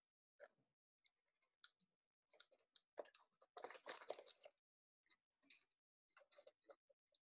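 Faint, intermittent rustling and crinkling of paper as thin paper strips are threaded through holes in a paper mask, with a denser stretch of rustling about halfway through.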